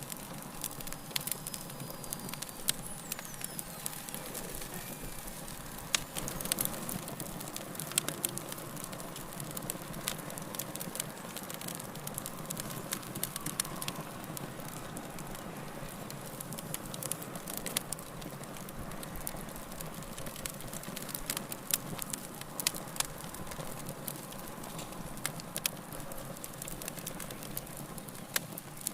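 Fireplace fire burning steadily, with frequent sharp crackles and pops over a constant hiss and rumble of flame.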